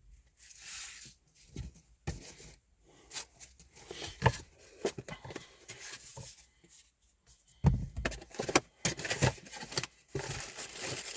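Rustling of packaging and small irregular knocks and clicks as a dash cam kit's parts are handled and taken out of the box, with a few louder knocks about eight seconds in and a steady rustle near the end.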